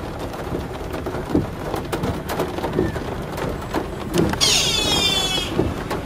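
A deer stag gives one high-pitched, wavering call lasting about a second, starting about four seconds in. Underneath is a steady background hiss with many scattered clicks and taps.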